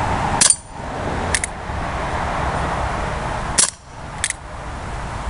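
Two shots from a CO2-powered Colt Single Action Army BB revolver, about three seconds apart. Each shot is followed less than a second later by a fainter sharp tick.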